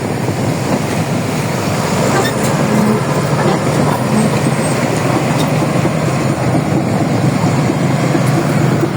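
Heavy diesel engine running steadily: a loud, even, low drone with a rushing noise over it.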